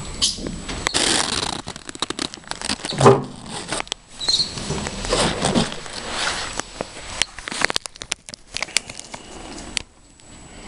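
Handling noise right at the microphone: rustling, scraping and many quick taps, with a louder bump about three seconds in.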